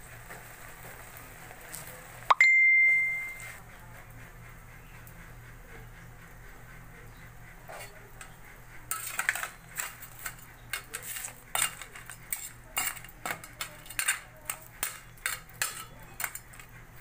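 A metal utensil strikes the cooking pot once with a sharp ringing clang about two seconds in. Later a ladle clinks and knocks against the metal pot again and again as it stirs the crab and squash stew.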